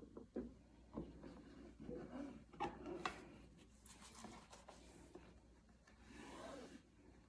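Faint handling noises: a few light taps and soft rustles, with quiet stretches in between.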